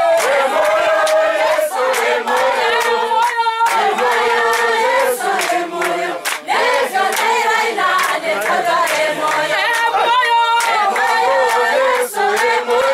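A group of women singing together as a choir, with hands clapping along in time.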